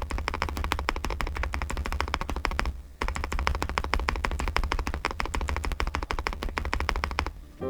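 Fast typing on a Nuphy Gem 80 mechanical keyboard: a rapid, continuous run of keystrokes with a brief pause about three seconds in, stopping just before the end.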